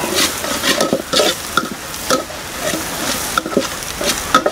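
Metal spatula stirring and scraping across the bottom of a metal pot of sliced onions and dried red chillies frying in coconut oil, over a steady sizzle. The scrapes come in repeated short, uneven strokes, two or three a second.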